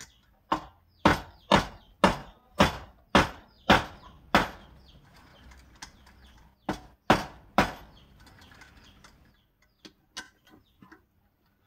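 Hard strikes on a wooden log fixed on a lathe, about two a second: eight in a row, a pause, then three more, with a few faint taps near the end.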